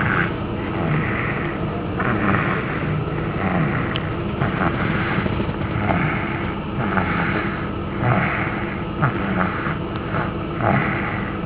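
Snoring: a steady rumbling drone with a rasping breath every second or so.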